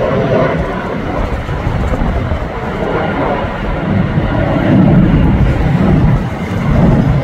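Jet noise from a British Airways Airbus A320-family airliner climbing away overhead, a loud steady rumble that swells and eases, with gusty storm wind buffeting the microphone.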